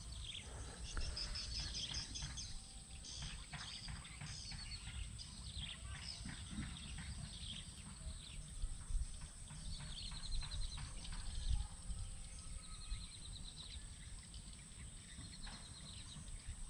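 Quiet swamp ambience: small birds chirp and give short high trills several times over a steady high hiss, with a few faint low knocks.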